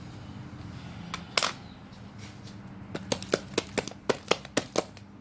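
Sticky homemade slime being squeezed and pulled in the hands, giving sharp clicking pops: one loud pop about a second and a half in, then a quick run of about nine pops at roughly five a second.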